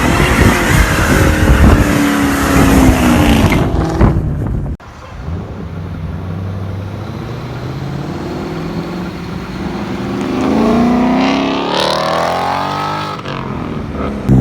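Loud car engine revving hard, its pitch easing down a little. An abrupt cut about five seconds in gives way to a quieter car engine that climbs in pitch as it accelerates near the end, then eases off.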